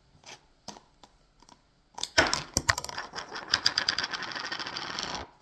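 Plastic slime container being opened: a few light clicks, then about three seconds of rapid, dense crackling clicks from the plastic.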